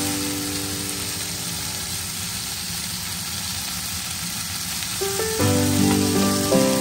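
Green beans and garlic sizzling as they stir-fry in a hot pan, a steady frying hiss. Background music fades under it and comes back about five seconds in.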